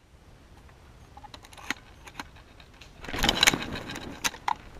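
A few light clicks of handled gear, then, from about three seconds in, crunching and rustling of dry leaves and brush underfoot as a player moves through undergrowth carrying an airsoft rifle.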